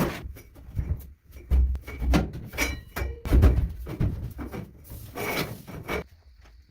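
Hand work on wood: irregular rubbing, scraping and knocking, a few strokes a second, that stops about six seconds in.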